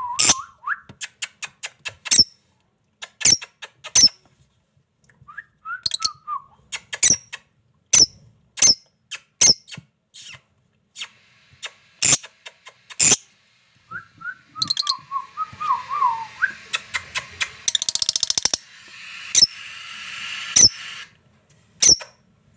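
A pet parrot giving sharp, shrill calls about once a second, with short falling whistled phrases between them. A steady hiss runs under the calls for several seconds near the end.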